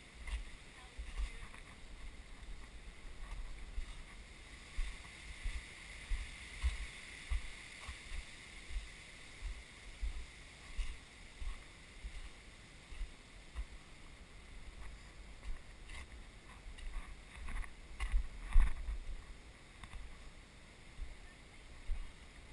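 Footsteps of someone walking over granite boulders, heard as dull thumps and handling bumps on a body-worn action camera, roughly one or two a second, with a few sharper knocks about three-quarters of the way through. A faint steady high hiss lies underneath.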